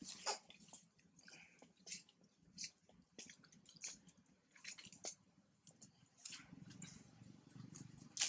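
Faint, irregular wet smacking clicks from a baby macaque suckling at its mother's nipple, roughly one every half second to second.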